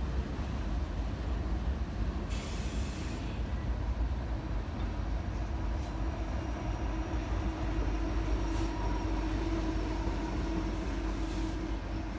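Freight train rolling past with a steady low rumble, and a short hiss about two seconds in.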